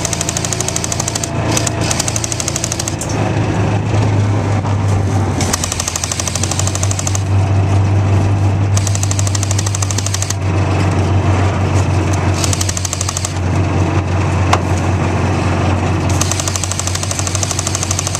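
A&K Para SAW airsoft light machine gun firing on full auto in long bursts, a rapid, even rattle, over the steady drone of a John Deere Gator utility vehicle's engine.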